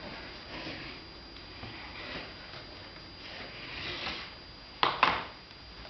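A switched-off vacuum cleaner being handled by a toddler: soft breathy sounds and light rustling, then two sharp knocks close together about five seconds in.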